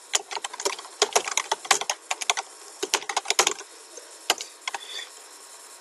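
Typing on a computer keyboard: a quick, dense run of keystrokes for about three and a half seconds, then a few scattered key presses.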